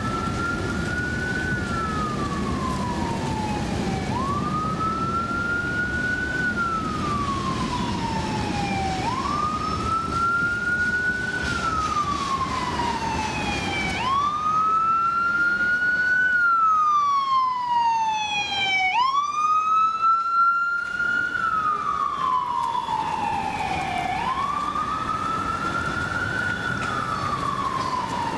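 A wailing siren rises and falls slowly, about once every five seconds, with faster higher sweeps joining it and growing louder midway. Underneath runs the steady low rumble of freight cars rolling along the track.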